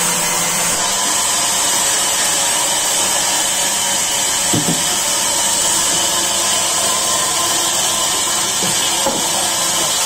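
Large sawmill band saw running and ripping lengthwise through a hardwood log: a steady, high-pitched whine from the blade cutting the wood.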